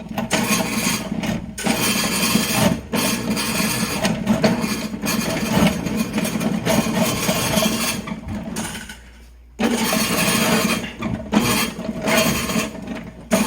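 Electric drain auger running, its drum spinning and the snake cable clattering as it is fed into a drain cleanout. It cuts out for about half a second around nine seconds in, then runs again.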